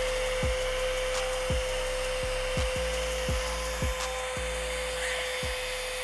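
Homemade handheld vacuum cleaner running: a steady motor whine over rushing air, with irregular low knocks about twice a second as sand and small stones are sucked up the hose.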